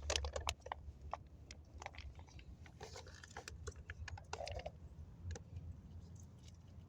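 A squirrel chewing and gnawing: irregular crunchy clicks and snaps, thickest in the first few seconds and sparser toward the end.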